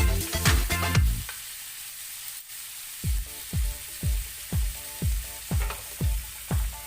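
Food sizzling as it fries in a pan, a steady hiss. Electronic dance music plays over it; its beat drops out for about two seconds, leaving the sizzle on its own, then comes back.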